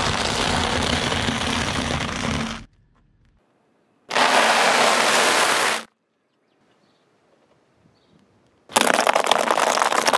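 A car tyre rolling over and crushing piles of dry, crunchy food three separate times: coloured veggie-straw snacks, then square cereal pieces, then dry tube pasta. Each crush is a dense, loud crackling crunch lasting one and a half to nearly three seconds, with quiet gaps between.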